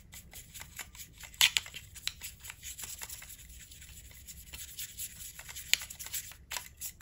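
A stiff brush scrubbing and dabbing weathering powder into a plastic model mineral wagon: a busy, irregular run of dry, scratchy ticks and scrapes. There are sharper clicks about one and a half seconds in and near the end.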